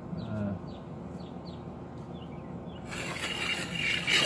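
A bird chirping over and over, short falling chirps about twice a second. About three seconds in, a rough scraping sound starts and grows loudest just before the end.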